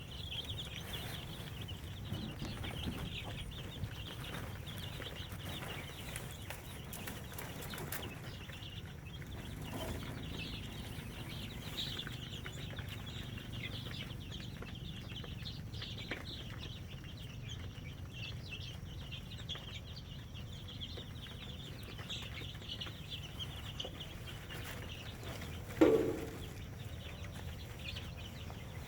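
Chickens clucking, with one loud, short call near the end, over a steady high-pitched background.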